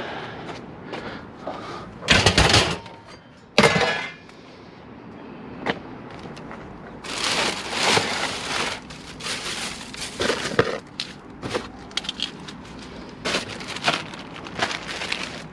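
Metal electronic scrap clanking down twice, hard and loud, a few seconds in, then plastic trash bags rustling, with small clunks and clicks of salvaged gear, as a dumpster is rummaged through.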